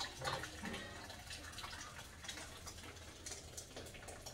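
Blended enchilada sauce being poured from a blender jar into a pan of roux: a running liquid stream that grows fainter toward the end.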